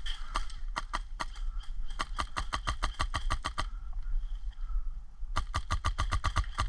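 HPA-powered airsoft rifle firing rapid strings of shots, about six or seven a second, in two runs broken by a pause of under two seconds in the middle.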